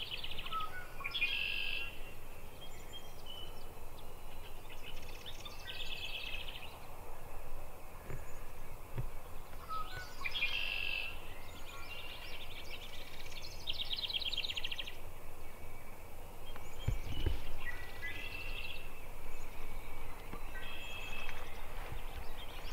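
A songbird singing short, high, trilled phrases, repeated every few seconds over a steady outdoor background, with a few faint low thumps.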